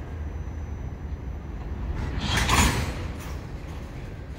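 Freight train tank cars rolling slowly on the rails as the train backs up, a steady low rumble with a louder rush of wheel-and-rail noise about two and a half seconds in.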